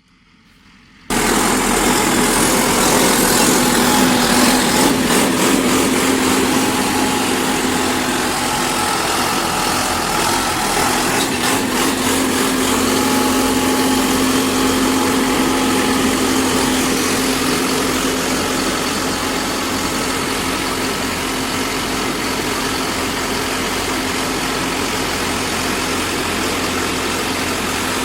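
Pile driver's engine running steadily at a constant speed with a steady hum, starting abruptly about a second in.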